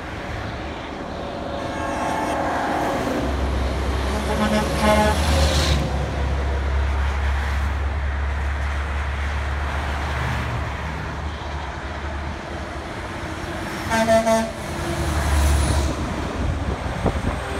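Semi-trucks passing on a highway, sounding their truck horns: a short horn blast about two seconds in, a longer one around five seconds, and another brief blast about fourteen seconds in. In between comes the low rumble of a truck's diesel engine passing by.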